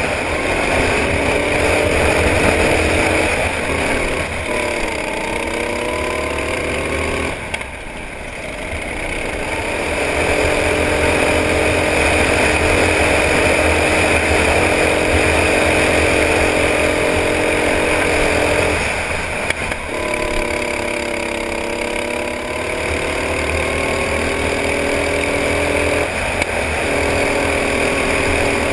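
Go-kart engine heard from on board, running hard at high revs; its note drops sharply twice, about seven and a half seconds in and again near nineteen seconds, then climbs back steadily as the kart accelerates again.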